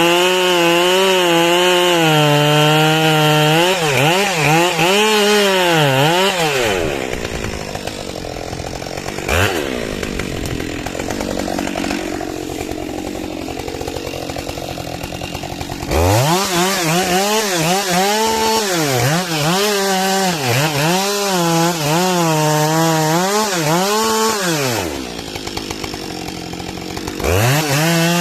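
A small engine running, its pitch repeatedly dipping and recovering in regular swings about once a second, with two quieter spells where the note fades into a lower haze.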